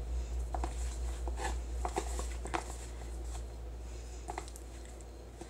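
Fingers kneading and squeezing a crumbly flour-and-baby-oil moon sand in a plastic tub: soft scattered crunches and small clicks against the plastic, over a steady low hum.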